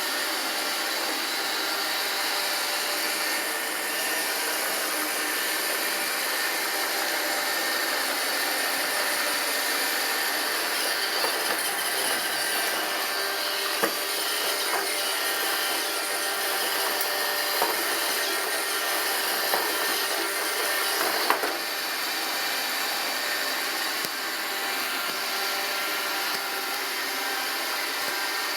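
iRobot Roomba 780 robot vacuum running steadily, its motors giving a steady whirring hiss with a thin whine. A handful of short sharp clicks come through in the middle stretch.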